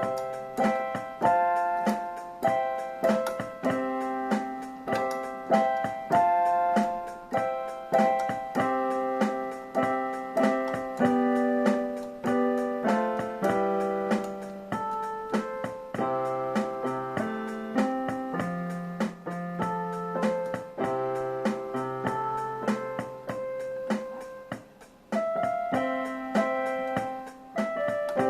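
Electronic keyboard with a piano voice playing a song's chords: chords struck in a steady rhythm over a changing bass note, each one fading after it is struck.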